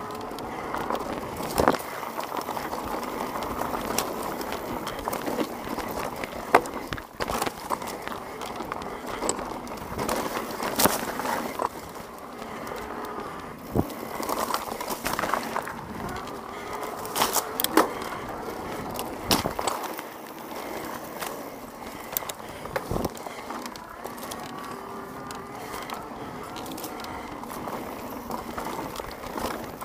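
Specialized Levo electric mountain bike ridden along a dirt singletrack: tyres rolling over the dirt with frequent sharp knocks and rattles from the bike over bumps and roots, over a wavering whine from the pedal-assist motor.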